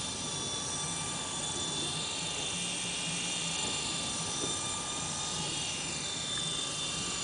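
E-sky Honey Bee CP2 electric RC helicopter hovering: the steady high whine of its electric motor and gears with the chop of the spinning rotor. Near the end one whine slides down in pitch.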